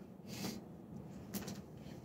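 A soft swish near the start, then two faint light taps about a second and a half in, from a jump rope being handled and swung.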